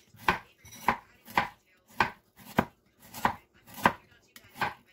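A broad-bladed kitchen knife slicing carrots into rounds on a wooden cutting board: a steady run of about eight sharp cuts, a little under two a second, each blade strike knocking on the wood.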